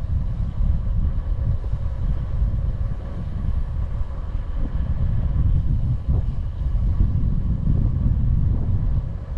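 Wind buffeting the microphone of a bicycle coasting downhill at speed: a steady, churning low rumble that rises and falls with the gusts.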